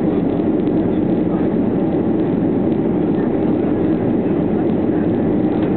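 Steady low drone of jet engines and rushing air inside an airliner cabin during its descent.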